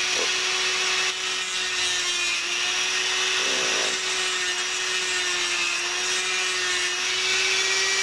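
Dremel rotary tool running steadily at high speed with a cut-off wheel, cutting shallow slits into a nylon tube push rod.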